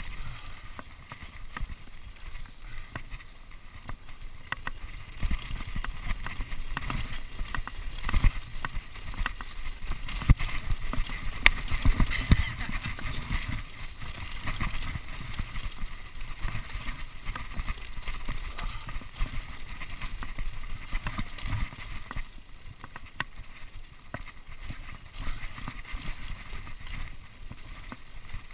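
Mountain bike riding fast downhill over dirt and stones: wind rushing on the microphone, with the tyres and frame rattling and knocking over bumps. It is loudest about ten to fourteen seconds in and eases near the end.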